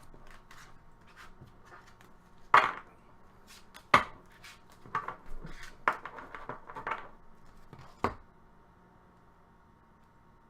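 Trading cards being handled and set down on a table: scattered light taps and clicks, the sharpest about two and a half and four seconds in, a quick run of them a little later, then stillness near the end.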